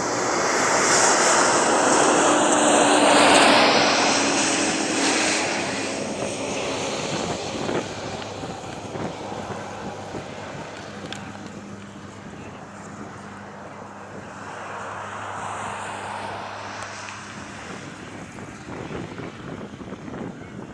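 An aircraft passing close by, its engine whine sliding down in pitch as it goes past, loudest a few seconds in and then fading. A second, quieter swell of engine noise with a falling whine comes about three-quarters of the way through.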